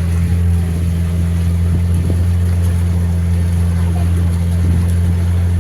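Tourist boat's motor running steadily, an even low hum with no change in speed.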